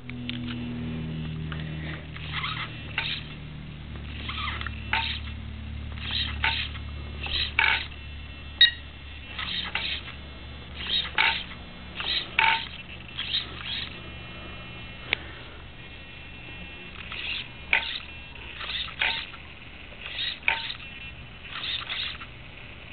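Traxxas E-Maxx RC truck's steering servo whirring in many short bursts, often two close together, as the steering is worked from side to side to show a steering fault.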